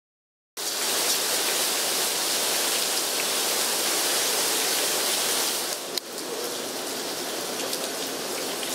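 Heavy rain, with runoff pouring in a sheet off a roof edge, starting abruptly about half a second in as a steady rushing noise. About six seconds in there is a brief click, and the downpour continues a little quieter.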